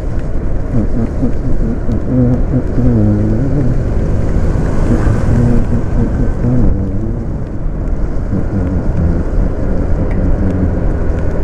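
Wind rumble on the microphone and wet-road noise from a motor scooter riding through rain, steady throughout. Under it, a pop song's melody carries on between sung lines.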